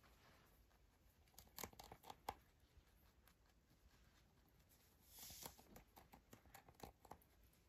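Rabbit biting and tearing a cabbage leaf: faint crisp crunches and rips, in a cluster about a second and a half in and again from about five to seven seconds in.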